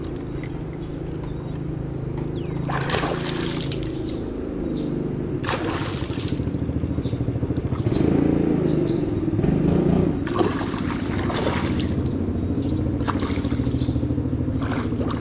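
Water splashing in several short bursts as a hooked fish thrashes at the surface, over a steady low mechanical hum.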